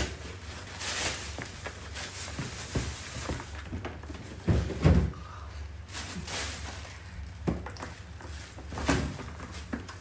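Scattered knocks and thumps of things being handled at an open fridge and a woven plastic basket, the loudest a pair of low thumps about halfway through.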